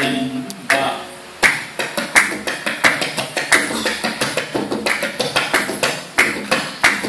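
Several tabla played together in unison, a steady run of sharp hand strokes several a second, each with a short ringing tone, after a brief lull about a second and a half in.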